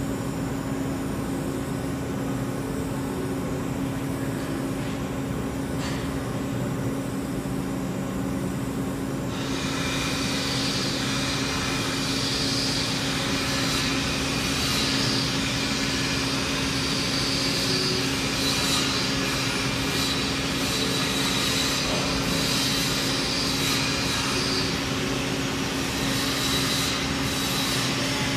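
TIG welding on a stainless steel schedule 10 pipe: a steady low hum with the hiss of the arc. About nine seconds in, the hiss turns louder and brighter and holds steady.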